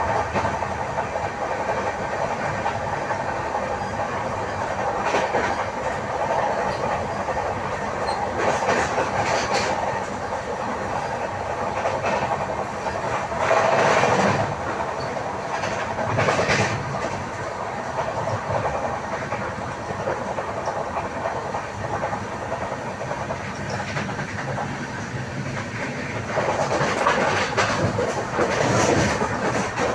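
A long-distance passenger express's coaches roll steadily past, their wheels clattering over the rail joints. There are louder spells of clatter about halfway through and near the end. The train runs with a flat wheel, which pounds the rail as it turns.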